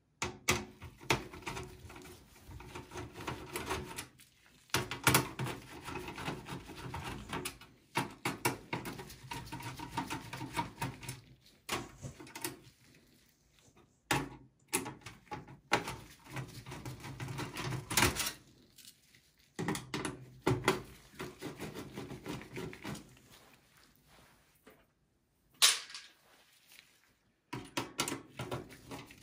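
Screwdriver turning out the motherboard screws of a steel desktop PC case: scratchy rubbing with small clicks as the screws turn, and a few sharper knocks of metal on the chassis, in several separate stretches.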